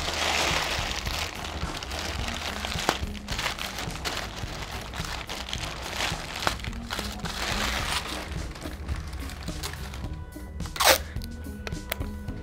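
Sheets of white tissue paper crinkling and rustling as they are wrapped and pressed around a bouquet, over background music. Near the end a single short falling swoosh, the loudest sound.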